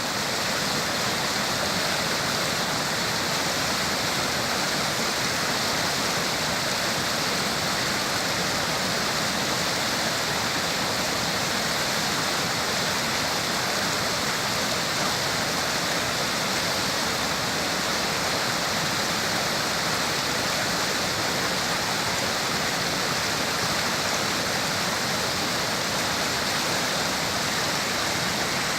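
Rushing water, a steady, unbroken noise.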